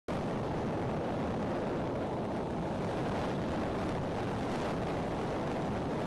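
Strong wind blowing steadily across the outdoor nest-camera microphone, a continuous low rushing with no bird calls.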